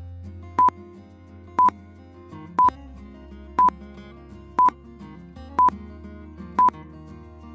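Countdown timer beeping once a second, seven short, loud, single-pitch beeps, over soft background music with a low sustained bass.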